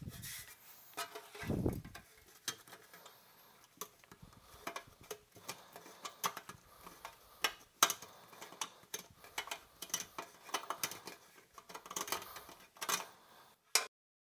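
A large drill bit twisted by hand in a freshly drilled hole in a metal chassis to deburr it: irregular small metallic scraping clicks, with a soft knock about one and a half seconds in as the chassis is handled.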